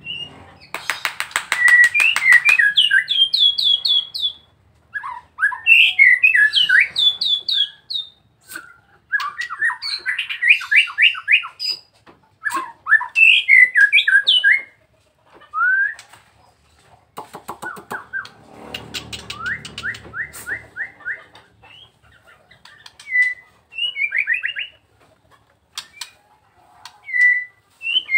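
Caged white-rumped shama (Nias murai batu) singing: repeated bursts of rapid, rising whistled notes, each phrase a second or two long with short pauses between, mixed with scattered sharp clicks.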